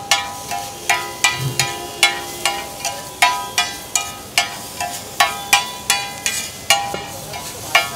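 Metal spatula striking and scraping a flat metal tawa griddle, chopping and tossing soya chaap with vegetables: quick, uneven clangs about three a second, each with a short metallic ring.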